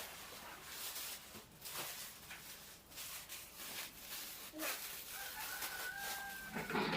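Rustling and crinkling of parcel packaging as it is handled, with a rooster crowing in the background for about a second near the end.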